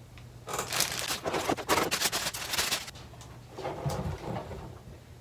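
Thin plastic bag crinkling and rustling for about two and a half seconds as a large figure is pulled out of it, followed by quieter handling sounds as the figure is set down.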